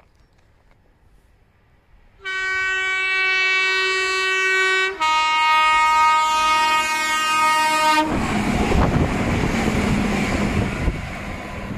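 Merseyrail electric train sounding a two-tone horn about two seconds in: a higher note held for about three seconds, then a lower note for about three seconds. It is followed straight away by the loud rumble of the train running past, which fades near the end.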